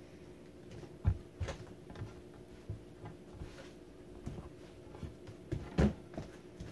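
Scattered soft knocks and thumps, the loudest about six seconds in, over a steady low hum.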